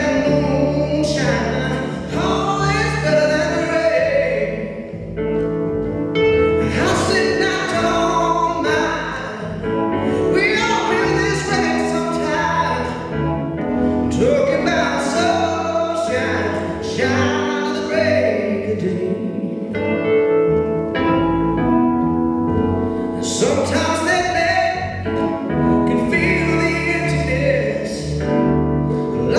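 A man singing live over an upright double bass. The voice comes in long phrases with short breaks between them, and the bass holds low notes underneath.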